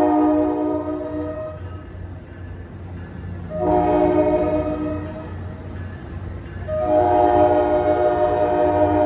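A New Jersey Transit train's air horn sounds a chord in three long blasts. The first blast, begun before, dies away about a second and a half in. A second is held for about a second and a half a few seconds later. A third starts about seven seconds in and is still sounding at the end. A steady low rumble of the train runs underneath.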